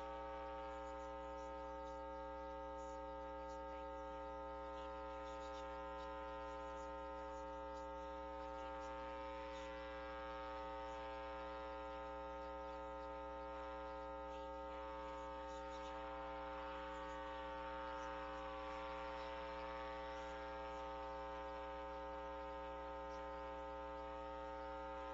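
Steady electrical mains hum: a faint, unchanging buzz made of many stacked tones.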